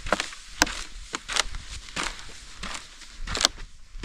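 A hiker's footsteps on an icy, rocky trail: a series of sharp, irregular clicks and knocks, with two louder strikes, one early and one near the end.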